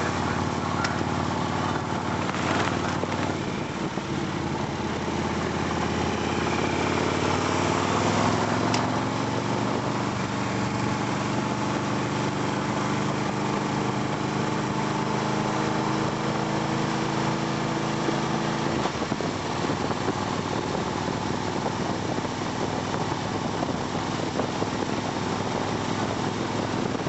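Touring motorcycle engine running as the bike rides along the street, over a steady rush of wind and road noise. The engine note rises a little several seconds in, holds, and then fades about two-thirds of the way through, leaving the rush.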